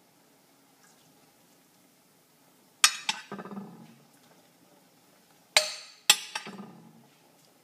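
Kitchenware being handled: a sharp clink about three seconds in, then two more close together near the end, each ringing briefly and followed by a short clatter.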